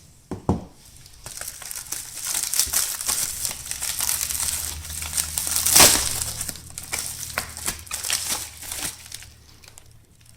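Packaging crinkling and tearing as a mailed package is cut and pulled open, with one louder rip a little past the middle.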